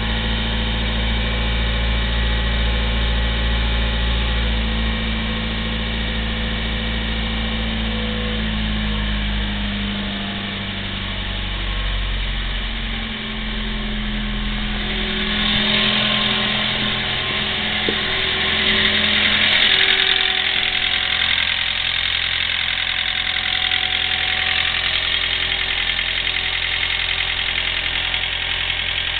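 Toyota Ractis NSP120's 1.3-litre four-cylinder engine idling after a cold start, its idle speed dropping lower about ten seconds in. It has an abnormal clicking ('kachi-kachi') at idle, which the owner traces to the timing chain, tappets and cylinder head and blames on a badly angled oil jet letting the cylinder head chatter.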